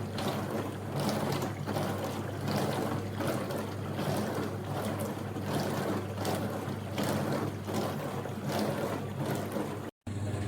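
Countertop mini dishwasher running a wash: the pump hums steadily while water sprays and sloshes inside the tub, swelling about once a second.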